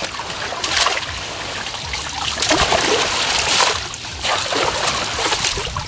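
Water splashing and trickling in several surges as people wade and drag a fishing net through a shallow canal.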